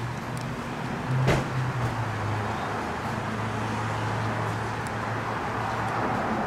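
Steady low hum of a vehicle engine running, over a haze of street traffic, with one sharp knock about a second in.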